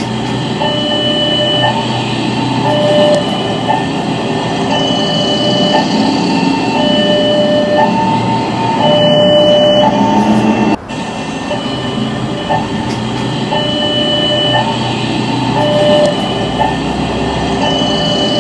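Railroad level crossing's electronic warning tones, switching back and forth between two pitches in a repeating pattern, over the rumbling of a passing train. The sound drops out for an instant about eleven seconds in.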